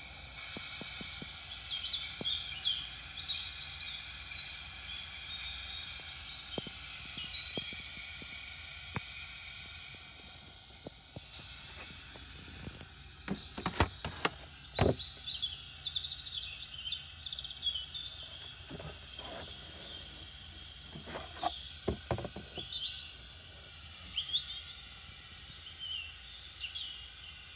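Ambience of many small birds chirping over a steady high hiss, with a few sharp clicks about halfway through.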